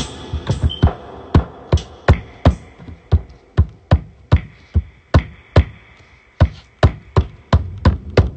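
Electronic drum hits from a beat being made, a single punchy drum sound repeated evenly about two and a half times a second.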